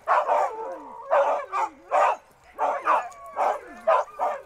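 Siberian husky sled dogs barking and yipping repeatedly, about two barks a second, with whining in between.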